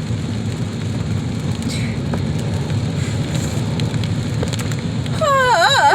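Steady low rumble of vehicle noise, with a brief high wavering voice sound about five seconds in.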